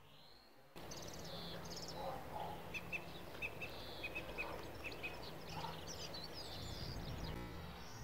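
Small songbirds twittering and chirping, with trills and a run of short repeated high notes in the middle, over a steady low hum. The sound starts suddenly just under a second in.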